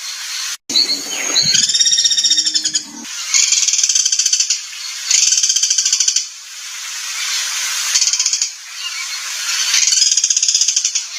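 Songbird singing rough, harsh 'materi kasar' tutoring song: rapid high trills and chattering phrases repeated one after another, with a lower pitched phrase at about 1 to 3 s. The sound cuts out for a moment about half a second in.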